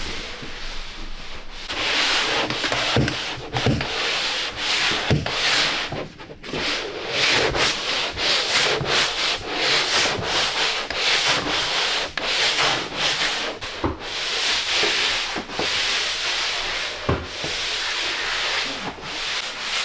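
Sandpaper rubbing over dried drywall mud on a wall, a light sanding to knock back bumps before painting: rasping back-and-forth strokes in quick irregular succession, with a short break about six seconds in.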